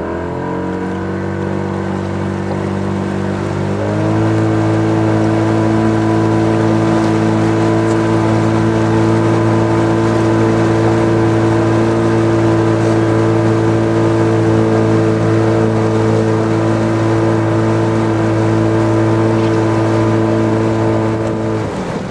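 Boat motor accelerating as the boat gets under way: its pitch rises at the start, steps up again about four seconds in, holds steady at speed, then drops as the throttle eases off near the end.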